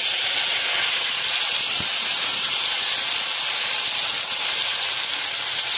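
Chopped tomatoes and shallots sizzling in hot oil in a steel pot as they are stirred with a spatula: a steady, even hiss.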